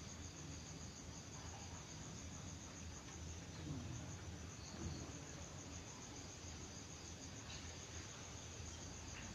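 Crickets chirping faintly in the background, a steady, evenly pulsing high trill, over a low hum.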